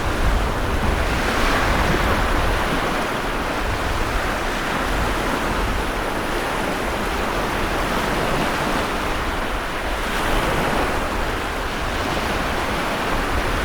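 Storm-driven sea waves breaking and washing in a continuous heavy surf, swelling and easing slowly, with a low rumble beneath.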